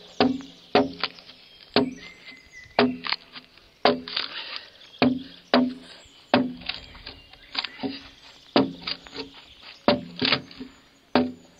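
Broad axe striking a pine log during hand hewing: a run of sharp, irregular chopping blows, roughly two a second, each with a brief ringing tone from the wood.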